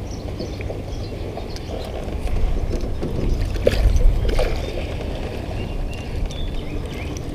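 Low rumble of wind and handling noise on the camera's microphone, swelling about two to four seconds in as a sleeve brushes over it, with a few sharp knocks and light water splashing as a crappie is reeled in and netted beside the boat.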